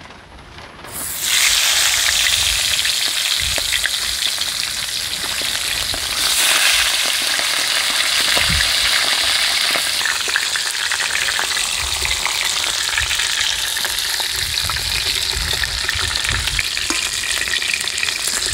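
Fish heads going into hot oil in a metal kadai: loud sizzling starts about a second in and runs steadily as they fry, with a metal spatula clicking and scraping against the pan.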